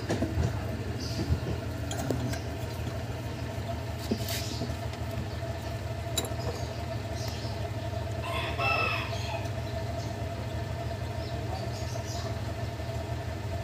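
A rooster crows once, about eight seconds in, over a steady low hum and a few faint clicks.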